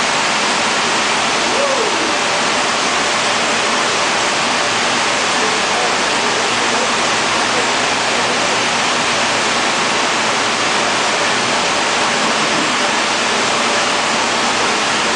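Loud, steady rushing noise of the gyrotron vault's fans and cooling equipment, even and unbroken.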